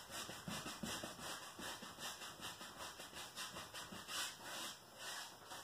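Faint, soft rubbing of paint being blended into a canvas in quick back-and-forth strokes, about three or four a second.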